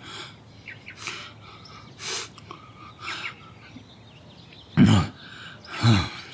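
A man breathing hard in fright: soft rasping breaths about once a second, then two loud gasps with falling pitch near the end, as he chokes for air after a nightmare.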